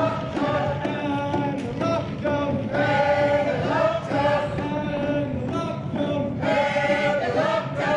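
A crowd of marchers singing together, many voices carrying a tune in held notes.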